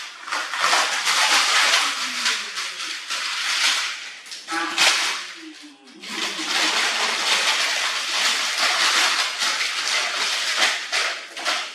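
Water running and splashing in a steady rush, breaking off briefly about five seconds in before running on.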